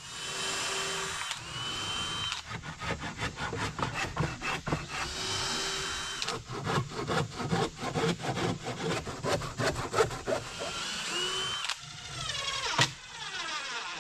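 Power drill driving screws into wooden boards, running in several short bursts with the motor winding up at the start of each, mixed with rapid sharp strokes of work on the wood.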